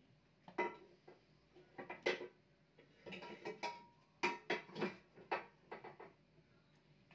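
Kitchen clatter: about fifteen irregular knocks and clinks, like pots and dishes being handled, from about half a second in until about six seconds in.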